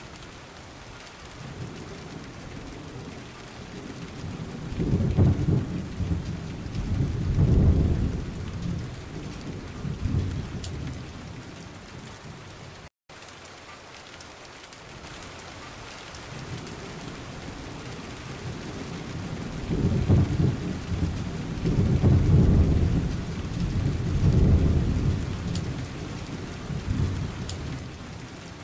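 Steady rain with rolling thunder: a long low rumble builds about four seconds in and fades by about eleven seconds, and a second one follows about nineteen seconds in. The audio cuts out for an instant near the middle.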